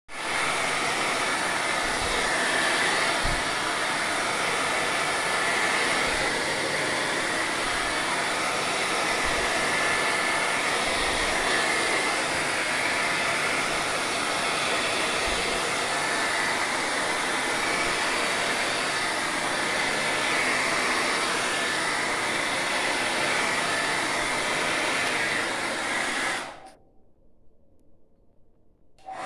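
Hand-held hair dryer with a diffuser attachment blowing steadily on a dog's fur, a constant rushing whoosh. It is switched off suddenly about 26 seconds in, leaving near silence, and comes back on right at the end.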